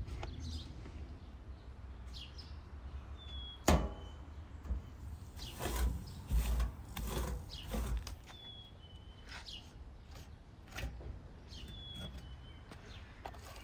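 A trowel scooping wet clay from a plastic tub and slapping and scraping it onto the rim of a metal tandoor lid to seal it: a sharp knock about four seconds in, then a run of scrapes and soft thuds. A bird chirps briefly now and then.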